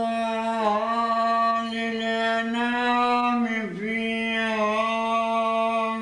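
A man's voice chanting Quran recitation, unaccompanied, in long held notes that dip briefly in pitch between phrases, twice.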